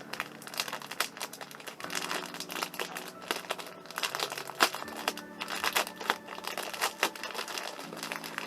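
Crinkly packaging rustling and crackling in irregular bursts as the hair clips are unwrapped, over soft background music with held low notes.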